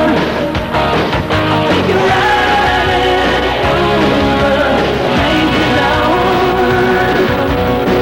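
Rock music with singing, guitar and a steady beat.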